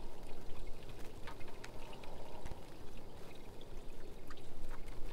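Steady rush and wash of water around a small boat on the river, with faint scattered small clicks.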